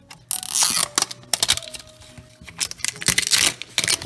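Printed wrapper being torn and peeled off a plastic toy hairspray bottle: a run of sharp tearing and crinkling crackles, busiest about half a second in and again around three seconds in.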